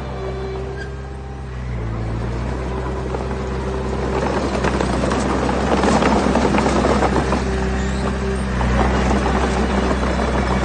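Diesel engine of a dump truck or small bulldozer running steadily. About four seconds in, a dense rattling and crunching of stones builds up, loudest a few seconds later, then eases near the end.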